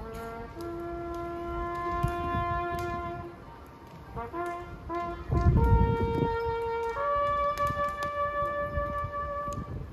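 A lone brass horn playing a slow call: long held notes, a quick group of short notes about halfway through, then two held notes, each higher than the last. A burst of low rumbling noise comes in the middle.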